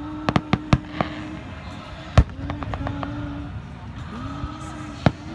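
Aerial fireworks bursting: a quick run of four sharp bangs in the first second, one loud boom about two seconds in followed by a few lighter pops, and another bang near the end.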